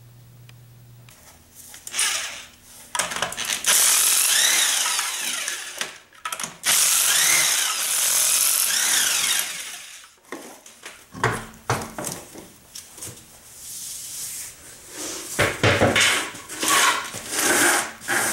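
Cordless impact wrench running lug nuts off a car's front wheel: two long runs that rise and fall in pitch, then shorter bursts and a couple of thumps.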